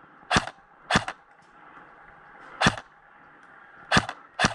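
Airsoft electric rifle (AEG) firing single shots: five sharp cracks at uneven spacing, two close together near the end.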